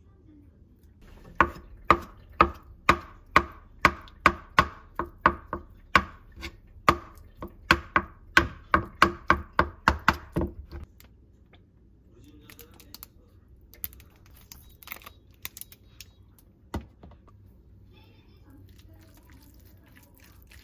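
A knife chopping boiled egg whites on a bamboo cutting board, with sharp, steady strikes about two and a half a second for some nine seconds. After that come fainter clinks and scrapes of a spoon mixing egg and tuna salad in a glass bowl.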